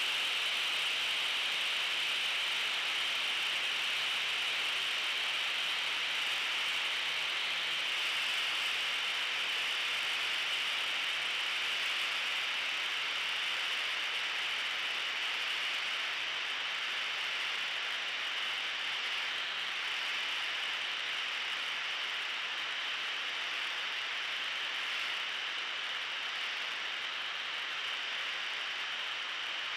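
Rushing airflow over a camera mounted on the tail of a Van's RV-7A light aircraft in flight: a steady hiss with a faint engine hum beneath it at first, growing slightly quieter in the second half.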